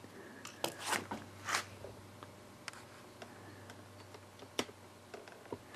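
A few faint, sharp clicks and taps spread through the stretch over a steady low hum, the first about half a second in as a broken half of a pink Motorola flip phone is set down on a concrete floor.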